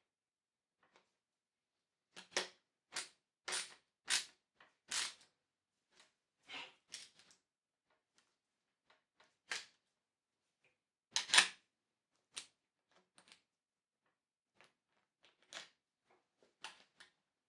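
Screwdriver turning the clamp bolt of a first-generation Shimano Dura-Ace brake lever on a drop handlebar: a run of short metallic clicks and scrapes, irregularly spaced. The loudest knock comes about two-thirds of the way through.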